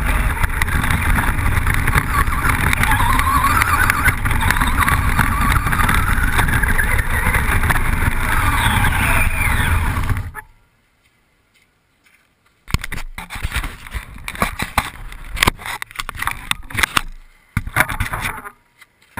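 Onboard sound of a Traxxas Rustler VXL's brushless electric motor and drivetrain whining, rising and falling in pitch with speed, over a steady rumble of tyres and wind as the truck runs across grass and dirt. About ten seconds in the sound drops almost to silence, then returns as broken, uneven bursts of noise.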